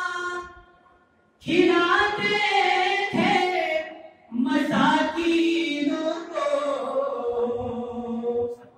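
A man chanting a devotional praise poem (madah) in a sung, melodic recitation through a microphone, holding long wavering notes. The voice breaks off for about a second near the start and pauses briefly around four seconds in.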